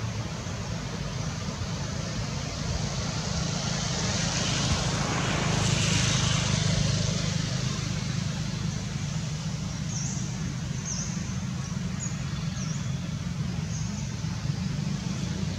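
Steady outdoor background of low rumble and hiss, swelling for a few seconds about five seconds in, like distant traffic or wind. Several short, high chirps sound about ten to thirteen seconds in.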